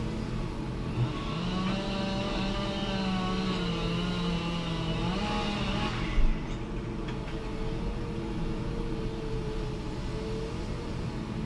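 Fendt 412 tractor's diesel engine running, its pitch wavering up and down as the revs change, with one sharp knock about six seconds in.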